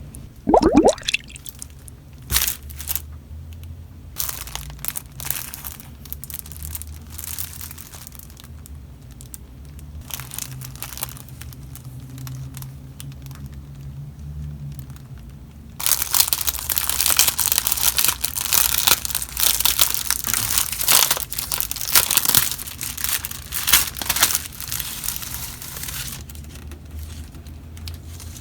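Plastic packaging of a keyboard protective film being handled and opened: scattered clicks and rustles at first, then about halfway through a dense, loud stretch of crinkling and crackling that lasts about ten seconds before fading.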